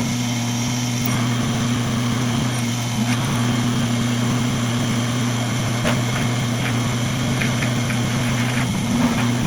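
Milling machine spindle running steadily with a 3/8-inch drill bit drilling holes in a steel piece, a few faint ticks over the hum. The spindle is spinning too fast for drilling.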